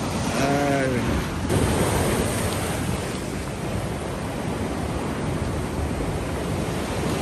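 Ocean swell breaking and washing over a rock ledge, a steady rushing surf with wind on the microphone. A short wavering voice-like call rises and falls about half a second in.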